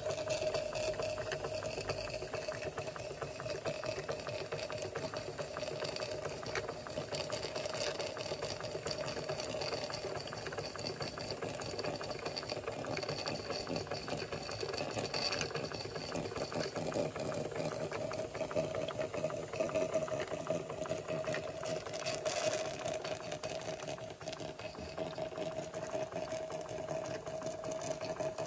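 Märklin 16051 live-steam model engine, a two-cylinder compound, running steadily: a fast, even mechanical clatter from its cylinders and crank, with a steady tone underneath.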